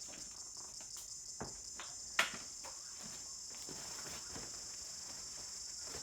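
A steady high-pitched chirring drone, insect-like, with scattered small clicks and knocks of hands working on a small tyre and tube. The sharpest knock comes about two seconds in.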